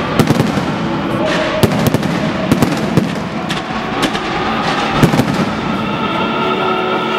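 Fireworks display: aerial shells bursting in sharp, irregular bangs, sometimes two or three in quick succession, over a continuous crackling hiss from rising tailed effects.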